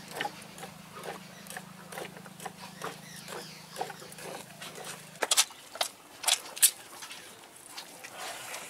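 Hand-milking a cow into a metal pail: a run of short, rhythmic squirts of milk, a few a second. About five seconds in, these give way to fewer, louder, sharp clicks.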